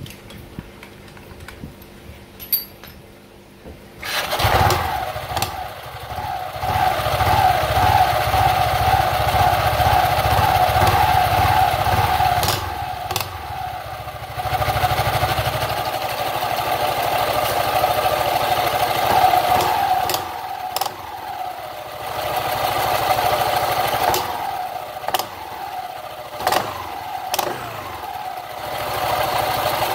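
Automatic scooter engine starting about four seconds in and running with its CVT cover off, the engine speed rising and falling several times, with a few sharp clicks along the way.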